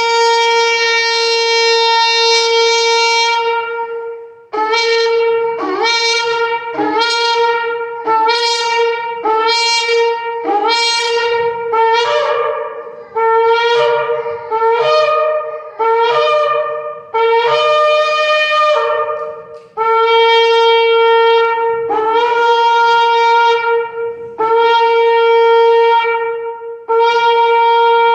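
A ram's-horn shofar being blown for Rosh Hashanah: a long steady blast, then a long run of short broken blasts about one a second, each scooping up in pitch, then several long steady blasts again.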